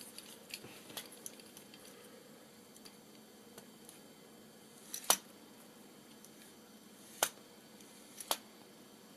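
A 3D-printed plastic plunger block being tilted so it slides on its metal guide bar, giving faint clicks of handling and then three sharp plastic-on-metal knocks in the second half.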